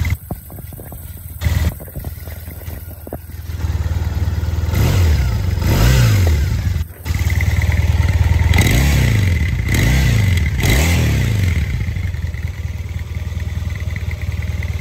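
2015 Triumph Bonneville's 865 cc air-cooled parallel-twin running at idle through its chrome exhaust. It is revved several times in the middle, each rev rising and falling back to idle.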